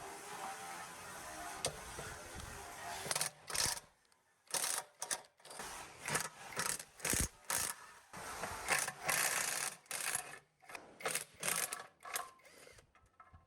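Hand-tool work on metal: a continuous scraping sound for about three seconds, then a run of short, irregular scrapes and clanks.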